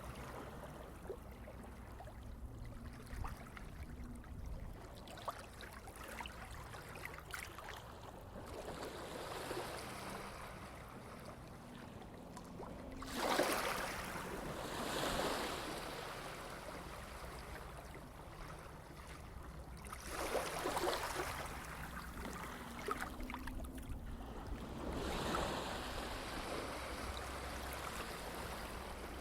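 Water rushing and washing in a steady hiss. It swells louder three times: about halfway through, around two-thirds of the way, and near the end.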